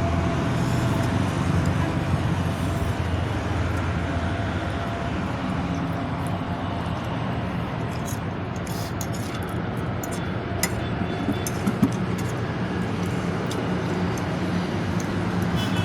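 Steady low background hum with scattered small clicks and taps, one a little louder about twelve seconds in.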